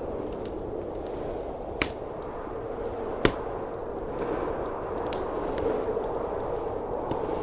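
Wood fire crackling in a fireplace, with a few sharp pops about two, three and five seconds in, over the steady sound of blizzard wind.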